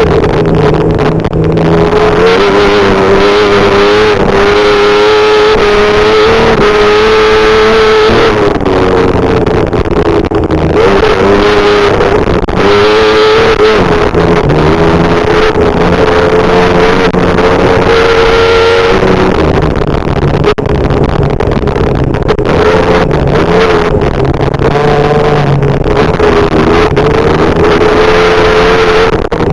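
Desert race truck's engine running hard at high revs, its pitch holding steady and then shifting several times as the throttle and gears change, with brief dips in between.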